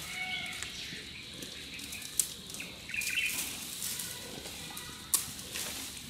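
Giant panda biting and chewing bamboo, with two sharp cracks of stalks snapping, about two seconds in and again near the end. Birds chirp in the background.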